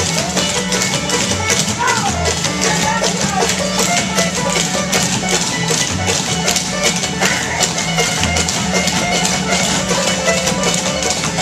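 Live bluegrass band of fiddle, guitar and banjo playing a lively tune, with the dancers' shoes tapping out a steady rhythm on the floor.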